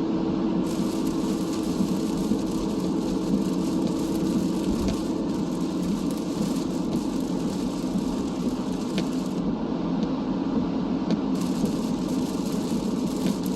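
Steady road noise inside a moving car: a low rumble of tyres and engine, with a faint steady hum that fades out about five seconds in.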